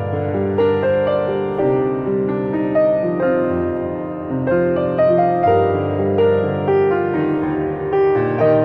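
Background piano music: a melody with a new note about every half second over held low notes.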